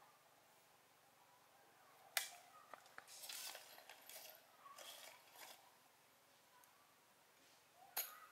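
Faint handling sounds: a sharp click about two seconds in, a few seconds of short scrapes and rustles, then another sharp click near the end.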